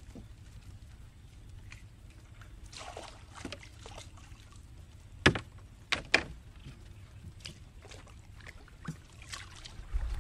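Water sloshing and lapping against a small wooden canoe under a steady low rumble. A few sharp knocks of gear against the wooden hull come about halfway through, the first the loudest.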